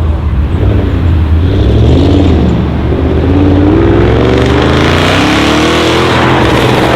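Audi RS6 Avant C7's twin-turbo 4.0 V8, decatted and breathing through a non-resonated Milltek exhaust, under hard acceleration. A steady low drone gives way, about two seconds in, to a rising engine note that levels off and dips slightly near the end.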